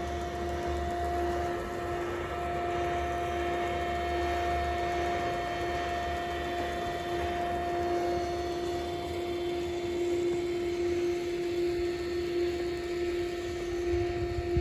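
Steady electric machinery hum, a low tone with a second one an octave above it, unchanging throughout, over a low rumble.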